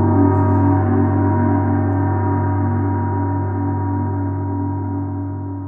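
A low, ringing instrument tone made in GarageBand, held and slowly fading, with a steady throbbing running through it.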